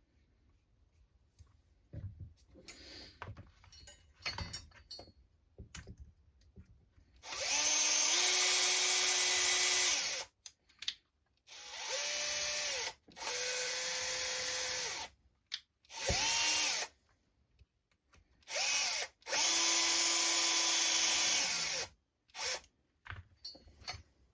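Power drill driving small screws into an RC truck chassis in about six short runs, each spinning up to a steady whine and stopping, the longest about three seconds. Light handling clicks come before the first run.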